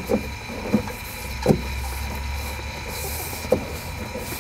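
Four short, dull knocks as a felt-lined window weatherstrip is pressed and snapped onto the top edge of a car's rear door, over a steady low hum.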